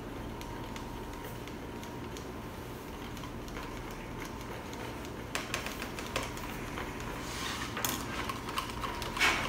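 Plastic stirrers clicking and scraping against plastic cups as slime is stirred after the activator goes in. The clicks are sparse at first and grow busier and louder from about five seconds in, over a steady low hum.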